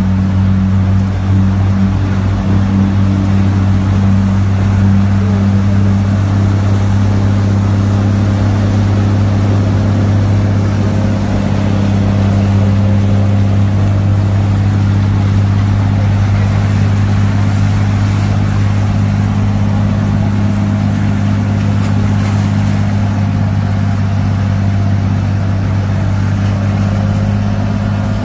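A car running at a steady pitch, heard from inside the cabin: a steady low drone with a hiss over it.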